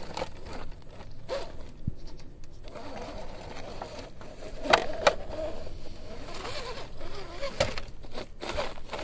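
Radio-controlled rock crawler's electric motor and gears whining, rising and falling with the throttle as it climbs over rocks, with scrapes and knocks of the tyres and chassis against stone; the sharpest knocks come twice about five seconds in and again near eight seconds.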